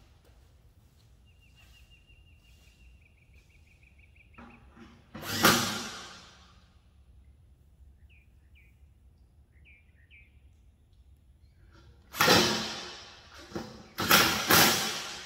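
A DeWalt cordless impact driver runs for about three seconds with a steady high whine as it drives a cabinet bolt. Loud metal clanks from the steel cabinet parts follow, one about five seconds in and three near the end, each dying away over about a second.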